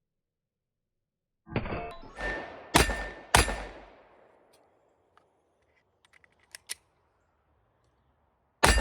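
9mm Glock 48 pistol with a compensated PSA slide fired several times in quick succession, each shot sharp and ringing off, followed by a few faint small clicks and one more shot near the end.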